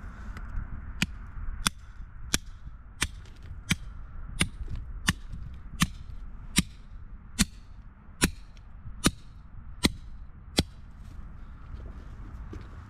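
A hammer striking a steel chisel driven into rock, splitting it to open the layers for fossils. About fourteen evenly paced blows, a little under a second apart, each with a short metallic ring, stopping near the end.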